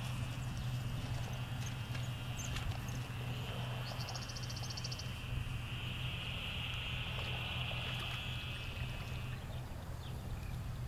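High, buzzy animal trills from around the pond, each lasting two to four seconds and repeating with short gaps. A brief higher pulsed call comes about four seconds in. A steady low hum and a few faint clicks run underneath.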